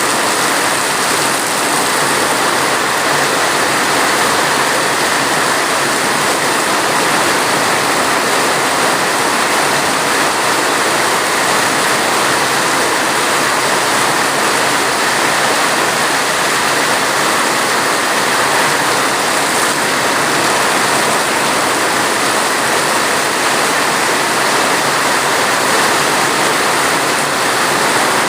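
Steady heavy rain, an even rushing hiss that holds without a break.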